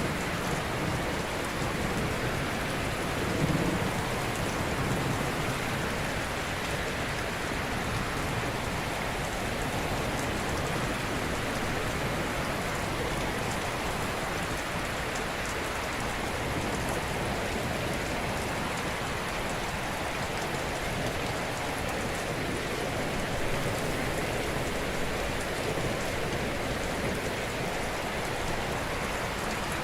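Steady, even rushing of water, a dense hiss spread from low to high with no distinct wave swells. A slightly louder low rumble comes about three to five seconds in.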